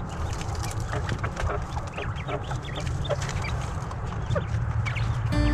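Poultry clucking and chirping in short, scattered calls over a steady low rumble. Acoustic guitar music comes in near the end.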